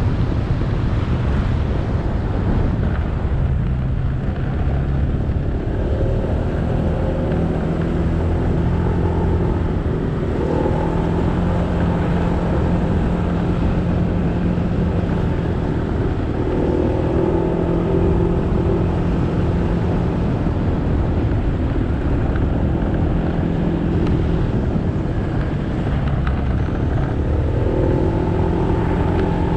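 Motorcycle engine running on the move, its pitch rising and falling several times with the throttle, over steady wind and road noise.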